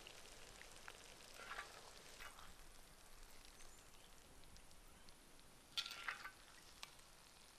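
Faint sizzling of porcini mushrooms in sour cream in a wide black pan, with a few scrapes of a metal spoon as they are served out, the loudest about six seconds in.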